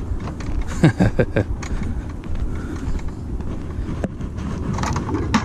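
Steady low rumble of wind on the microphone, with a few short sounds falling in pitch about a second in and a sharp click about four seconds in.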